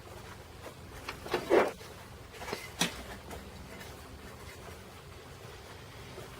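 A few short knocks and clatters of objects being handled: a quick run of knocks ending in the loudest one about one and a half seconds in, then a sharp click near three seconds.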